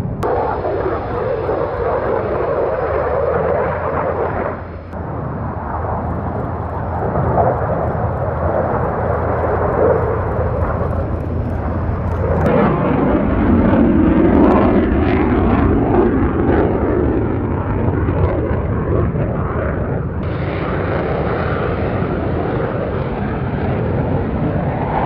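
Saab JAS 39 Gripen single-engine fighter jet flying past, a steady jet engine rush. The sound changes abruptly about five, twelve and twenty seconds in, and is loudest in the middle.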